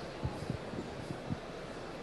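Quiet room tone in a hall with a few faint, soft low knocks.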